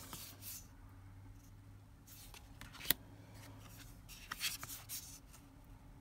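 Tarot cards being handled: faint slides and brushes of cardstock as cards are picked up and laid down, with one sharp click of a card edge just before three seconds in.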